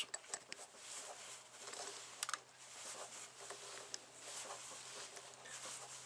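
Faint scratching and rubbing of a plastic MC4 solar connector being tightened with hand tools, with a few small clicks, the loudest pair about two seconds in. A low steady hum runs underneath.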